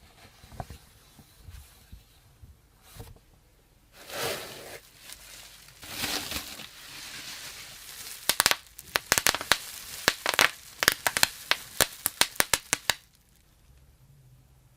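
Packaging being handled: crinkling and tearing, then a quick run of sharp clicks and snaps over a few seconds that stops suddenly.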